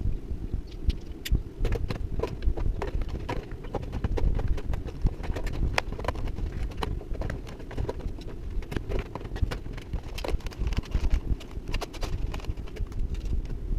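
Handling noise from unboxing: irregular clicks and knocks of objects being handled, over a constant low rumble.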